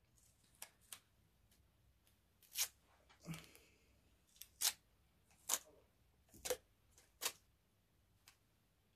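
Roll of medical tape being pulled off and torn into small pieces: about a dozen faint, short crackles and snaps, irregularly spaced.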